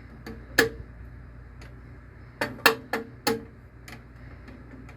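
Sharp metallic clicks and taps from a tool working down inside a magnetic vending machine lock to pick out a magnet: a few single clicks, then a quick cluster of four about halfway through.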